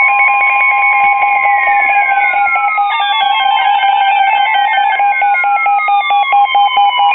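Emergency Alert System alert tones: rapidly alternating electronic beeps over steady tones, with several tones sweeping down in pitch along the way. They signal the start of a severe thunderstorm warning.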